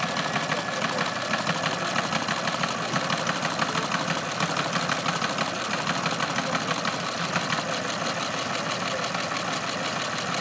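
Western Union Model 2-B telegram printer (Teletype Corporation) running and printing a message onto paper tape, with a rapid, steady mechanical clatter from its printing mechanism.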